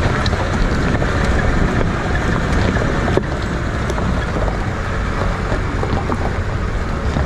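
Off-road safari vehicle driving over a rough gravel track: engine running, tyres crunching on loose stones with scattered small clicks, and wind buffeting the microphone.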